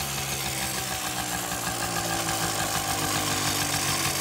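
Mobylette moped's small two-stroke single-cylinder engine running steadily at idle, with a fast even putter.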